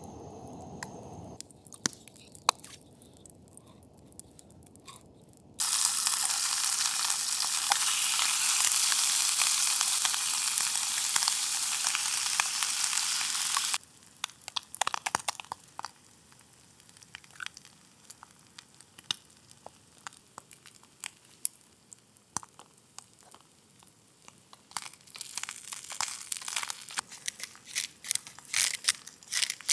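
Diced hash frying in oil in a small camp frying pan: a loud, even sizzle that starts suddenly a few seconds in and cuts off about eight seconds later, then quieter crackling and spitting with sharp taps as eggs are cracked over the pan. Near the end the crackle grows busier again as the eggs fry.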